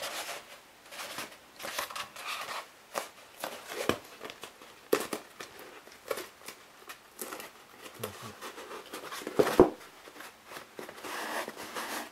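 Hands handling and pressing together curved pieces of a black soft-foam mask shell, rubbing along the seam where they are stuck edge to edge: irregular rustling and scraping with a few sharp knocks, the loudest about nine and a half seconds in.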